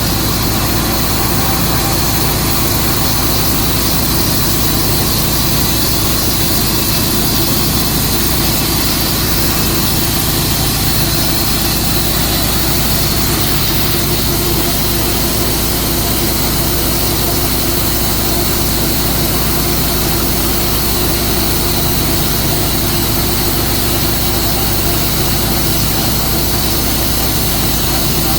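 Tru-Cut sawmill running steadily, its engine holding a constant pitch with no change in loudness.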